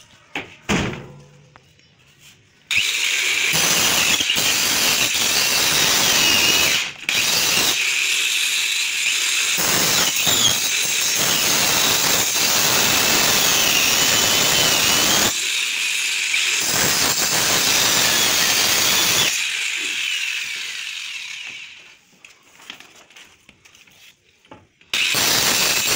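A handheld circular saw trims the edge of a pressed plywood door. The whining cut starts about three seconds in, after a few knocks, with a brief break near seven seconds. It winds down around twenty seconds, and the saw starts cutting again near the end.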